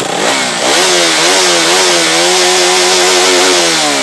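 KTM Duke 200's single-cylinder, fuel-injected twin-cam engine revved hard through its exhaust: the revs climb within the first second, hold high and steady, and begin to fall just before the end.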